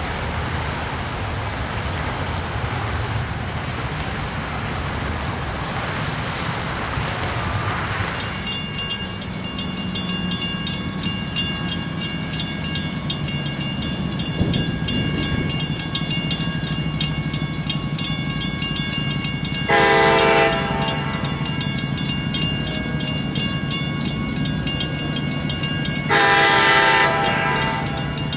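Cars passing on the road at a railroad grade crossing, then the crossing's warning bell starts ringing rapidly about eight seconds in. An approaching train sounds its horn twice, two blasts of about a second each, some six seconds apart.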